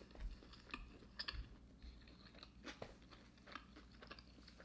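A person chewing a mouthful of McRib pork sandwich with the mouth closed: faint, irregular short mouth clicks.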